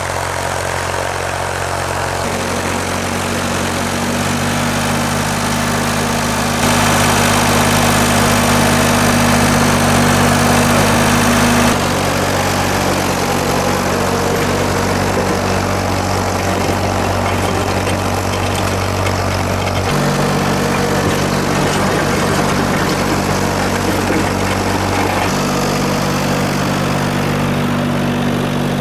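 1969 Ford 4000 tractor's three-cylinder engine running steadily while the tractor pushes snow. Its hum holds one pitch for a few seconds, then jumps abruptly to another, several times.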